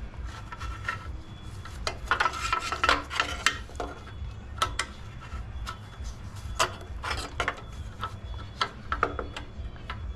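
Metal tools and small engine parts clicking, scraping and rubbing as a carburetor is worked loose from a garden tiller's engine, with a steady low hum underneath.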